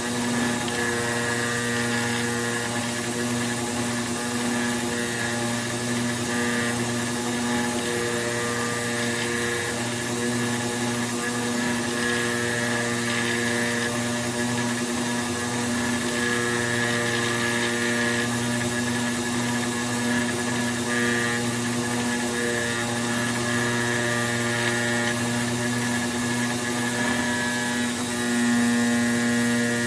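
The high-speed router spindle of an AOKE CNC flatbed cutter milling E-flute corrugated board, running steadily over the machine's hum. A higher tone comes and goes several times as the head moves along the cut, and the sound grows slightly louder near the end.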